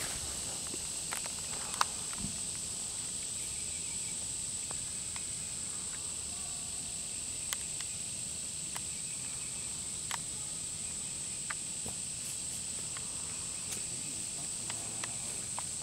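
Insects droning in one steady high-pitched note, with a few sharp clicks scattered through it, the loudest about two seconds in.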